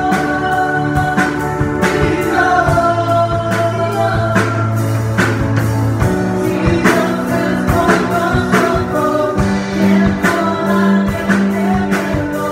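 Live worship band playing a gospel song: a man singing into a microphone over sustained keyboard chords and a steady drum beat of about two hits a second.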